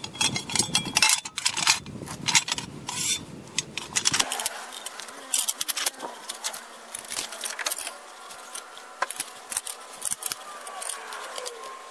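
Light metallic clinks, taps and scrapes from handling brake parts by hand: a sheet-metal dust shield being fitted onto a wheel hub, then the hub and rotor being offered up to the steering knuckle.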